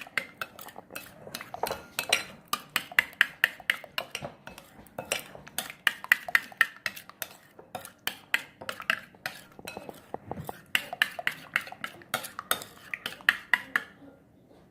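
A utensil stirring a thick sauce in a bowl, clinking against the sides in a quick run of taps, about three or four a second, that stops shortly before the end.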